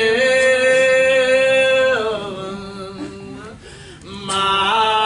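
Unaccompanied hymn singing, very slow and drawn out: a long held note that slides down about two seconds in and fades, then a new note is taken up about four seconds in.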